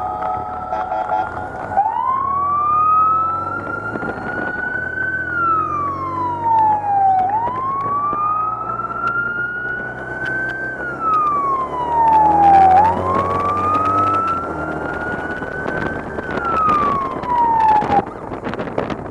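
Police siren wailing in slow rise-and-fall sweeps, about three cycles, then cutting off about a second before the end. Engines run underneath it.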